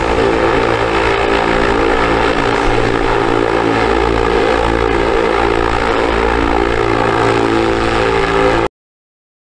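Small electric motor spinning a propeller on a homemade propeller-driven toy car, running steadily at high speed. It cuts off abruptly shortly before the end, leaving silence.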